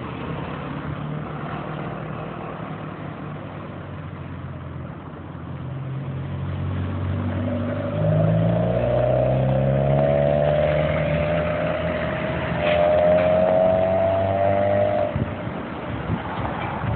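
A motor vehicle's engine running and gathering speed, its pitch rising slowly through the middle of the clip and falling away about two seconds before the end, over a steady road-noise hiss.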